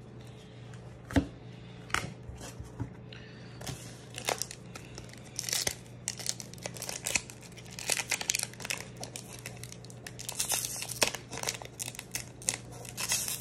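Foil wrapper of a Pokémon Obsidian Flames booster pack crinkling and tearing as it is worked open by hand. The seal is stubborn ('super glue these packs'). A few scattered clicks at first, then dense crinkling from about four seconds in.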